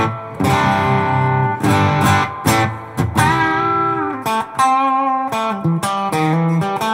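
Fender Roadworn '50s Telecaster played through an Electro Harmonix Soul Food overdrive pedal into a Fender '65 Deluxe Reverb reissue amp: a run of distorted chords and single-note licks, each picked attack ringing on.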